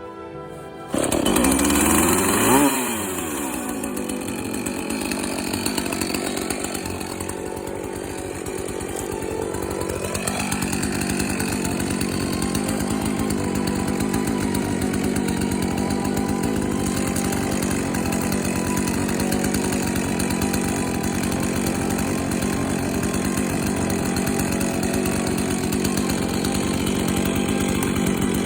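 Husqvarna Rancher 450 two-stroke chainsaw, fitted with a freshly sharpened semi-chisel chain, comes in suddenly about a second in and is revved, its pitch swinging up and down. About ten seconds in the pitch rises again, and the saw then runs steadily at high speed.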